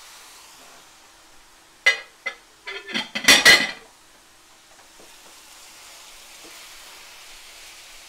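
Raw ground beef sizzling faintly in a hot stainless steel sauté pan, while a spatula stirring it knocks and scrapes against the pan: two sharp knocks about two seconds in, then a louder flurry of clattering and scraping lasting about a second.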